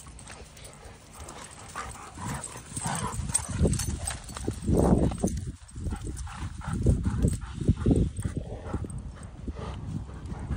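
Dogo Argentino dogs play-fighting: rough growls and grunts in several bursts, with paws scuffling on the grass.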